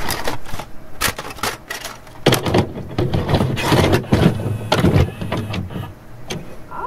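A video cassette recorder's tape mechanism clicking and clunking as a cassette is loaded and set to play, in irregular knocks over a low rumble, with a short rising whine right at the end.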